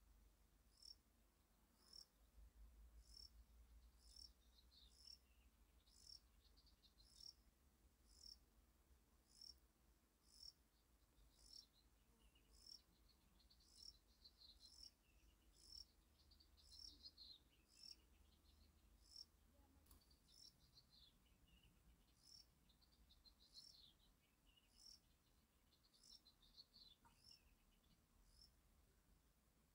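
Faint outdoor wildlife ambience: a short high chirp repeats steadily about once a second. Bursts of quicker, warbling chirps come and go over a low rumble.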